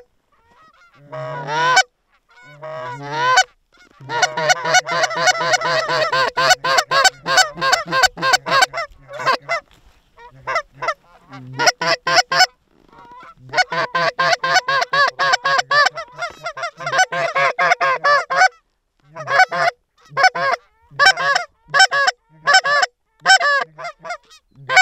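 Canada goose calling on hand-blown goose calls: long fast runs of clucks and honks, several notes a second, easing near the end into slower single honks about two a second.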